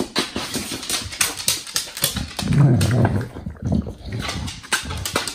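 English bulldog sniffing and snorting as it noses around for hidden food, with a low grunt about two and a half seconds in.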